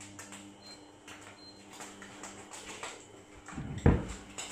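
Egg frying in a pan until it burns: faint scattered crackles and ticks over a steady low electrical hum. Two short high beeps come about a second in, and a single loud thump comes near the end.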